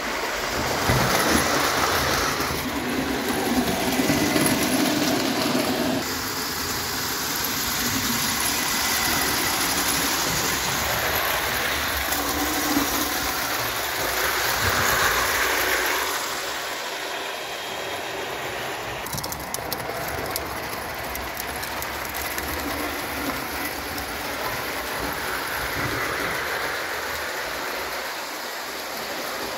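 O gauge tinplate model trains running on metal track: a steady rattling clatter of wheels on rails, a little louder in the first few seconds, with a run of sharp ticks about two-thirds of the way through.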